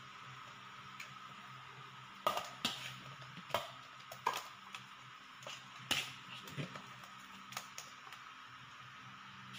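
A metal spoon knocking and scraping against an aluminium baking tray while sticky glutinous rice is spread in it, about ten short, irregular clinks and taps starting about two seconds in.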